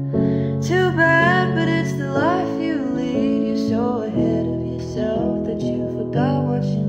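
Background music with acoustic guitar and a gliding melody line over sustained low notes.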